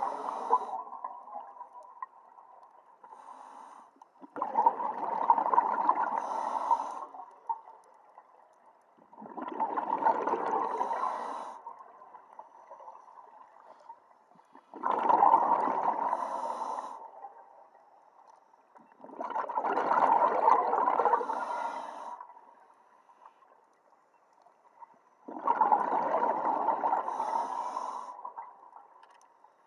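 Scuba diver breathing through a regulator underwater: exhaled bubbles come in bursts of two to three seconds, about every five seconds, with quiet inhalations between.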